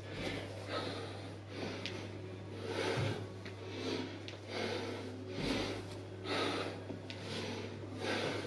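A man breathing hard from exertion, short forceful exhales about once a second, with two dull thuds of feet on the floor. A steady low hum runs underneath.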